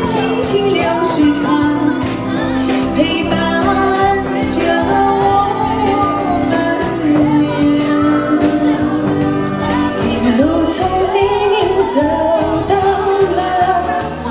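A woman singing into a microphone with a small live band of keyboard, acoustic guitar and electric bass playing a song with a steady beat.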